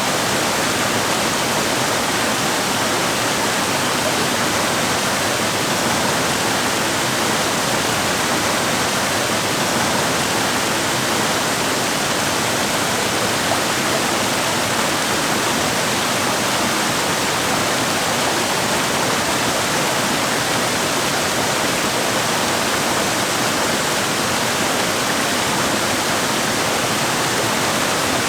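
Waterfall: water pouring and rushing steadily over rocks, a constant, even rush with no change in level.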